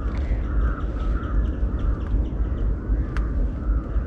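Low, gusting wind rumble on the microphone, with birds calling in the background and a single sharp click about three seconds in.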